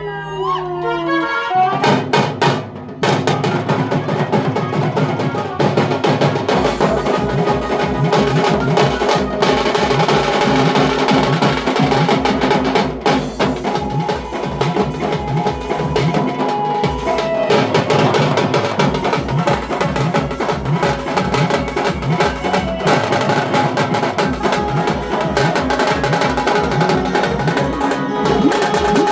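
Tasha drums played in fast, dense strokes along with loud music, with a heavy bass beat joining about six seconds in.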